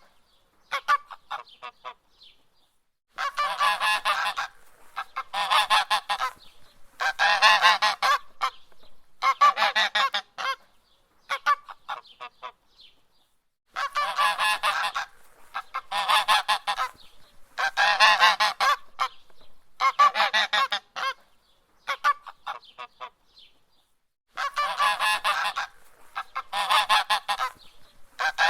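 Goose honking in bursts of rapid, harsh honks, each burst about a second long and about two seconds apart, with a few longer pauses between runs of bursts.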